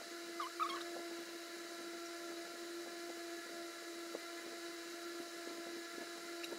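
Steady whirring hum of a running electric stand fan, one held tone with fainter overtones over a light hiss. A brief high chirp sounds about half a second in, and a couple of soft clicks come later.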